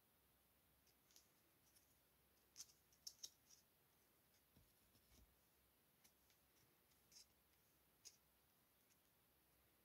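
Faint, sharp clicks and scrapes of small cardstock cards being handled and swapped between the fingers, with a cluster of several clicks about two and a half to three and a half seconds in and single ones near the end, over near silence.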